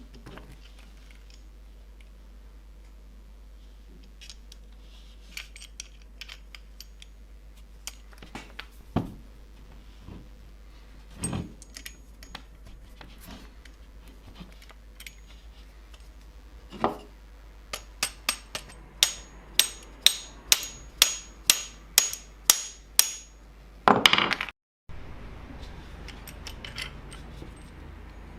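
Hand-tool work on metal parts: scattered light clicks and knocks, then a steady run of about a dozen sharp hammer taps, roughly two a second, with a faint high ringing. A louder, longer clatter follows near the end.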